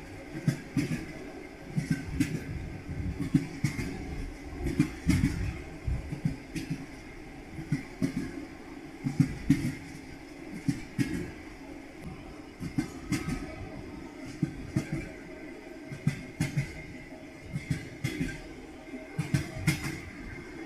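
Railway carriage wheels knocking over rail joints: an irregular run of sharp knocks, some in quick pairs, over a steady low rumble of the moving train.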